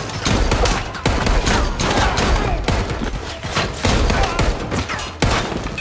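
Rapid handgun fire in a shootout, several shots a second, with short lulls about a second in and about five seconds in.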